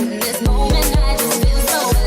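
Background music with a steady, heavy bass-drum beat, about two beats a second, under sustained pitched notes.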